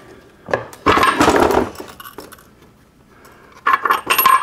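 Cast-iron Borg-Warner T10 four-speed transmission case being handled and tipped over on a bench: a rough scrape about a second in, then loose metal gears and parts clinking and ringing near the end.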